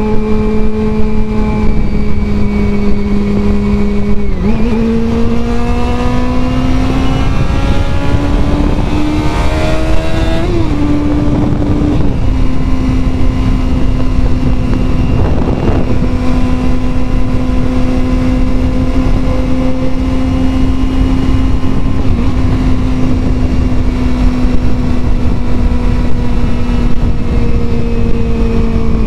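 Honda CBR400RR's 400cc inline-four engine under way at road speed, heard from a helmet camera with heavy wind rush on the microphone. About four seconds in the engine note steps up and climbs for several seconds, then drops back and holds steady.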